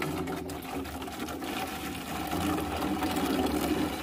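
Liquid pouring steadily from a plastic bag into a glass jar of mixed drinks.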